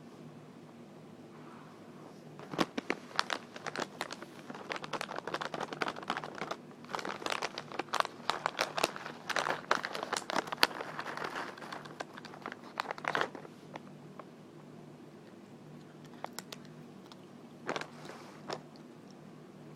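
Crinkly material being crinkled and tapped close to the microphone: a dense run of crackles for about ten seconds, then a few scattered taps near the end, over a faint steady hum.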